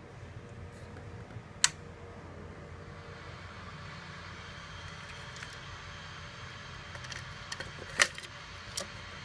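Mechanical clicks from handling a Becker cassette player adapter and its car radio. There is a sharp click about a second and a half in, then small clicks and a louder click near the end as a cassette is pushed into the slot, all over a faint steady hum and hiss.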